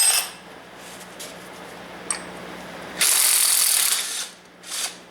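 Ratchet wrench winding a bolt to press a power steering pulley onto the pump shaft: a few separate clicks, then about three seconds in a second-long stretch of fast ratcheting, and a shorter one near the end.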